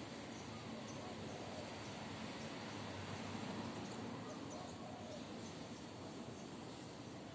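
Quiet outdoor background noise, steady throughout, with faint scattered high chirps of insects or birds.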